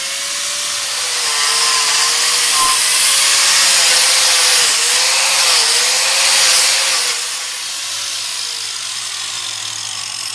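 4.5-inch angle grinder with a 14-tooth Lancelot carving wheel cutting into a wooden plank: a steady motor whine that dips in pitch each time the wheel bites into the wood, over a dense hiss of flying chips. About seven seconds in the cutting eases off and the motor pitch slides down as it winds down.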